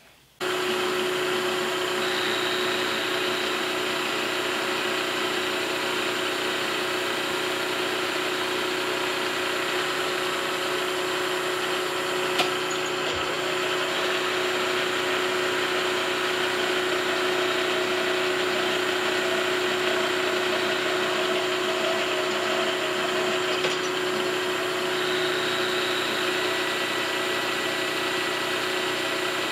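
Vertical milling machine running, its end mill cutting a step into a metal block: a steady machining noise with a constant tone through it. It starts suddenly just after the beginning, with one brief click about halfway through.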